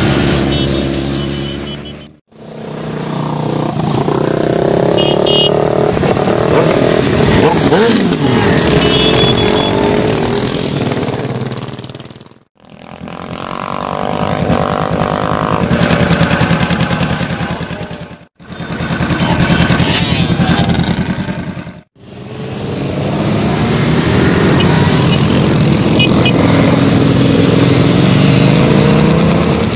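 A column of motorcycles and quad bikes riding past, many engines running together with pitches rising and falling as they go by. The sound comes in several edited segments that fade out and back in; in one, about half way through, a single motorcycle with an aftermarket slip-on exhaust runs close up.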